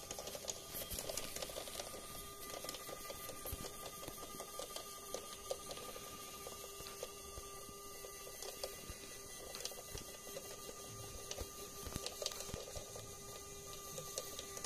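Home-built LEGO-compatible monorail engine running along plastic monorail track: a steady small electric motor whine through its LEGO Technic gearing, with irregular clicking and rattling from the wheels and axles. The rattle is the vibration the engine still shows on turns.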